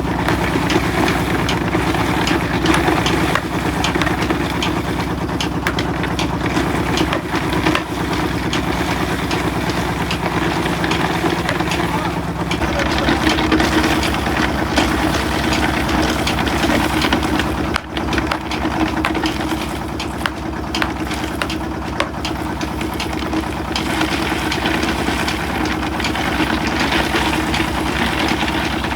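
Rock salt crushing machinery running steadily, an engine drone with a fast, even pulse. A steady low hum in it stops about twelve seconds in.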